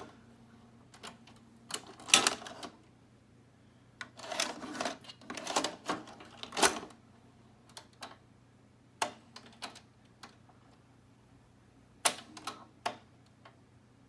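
Irregular sharp clicks and short bursts of clattering, as of hard plastic and metal hardware being handled and set down, over a faint steady low hum.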